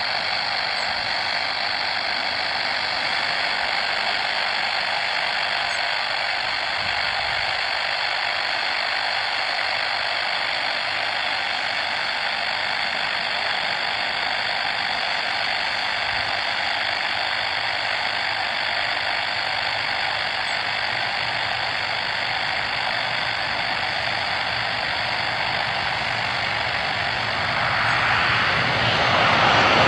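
Boeing 737-800's CFM56 jet engines on final approach, heard from afar as a steady rushing whine that grows louder near the end as the airliner comes closer.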